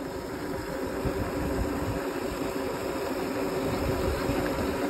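Wind buffeting the microphone and tyres rolling on asphalt while riding a small electric bike at speed, with a faint steady hum.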